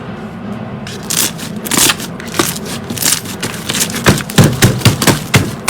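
Slime being squeezed and pressed, crackling and popping with sharp snaps that start about a second in and come thick and fast, about four a second, near the end.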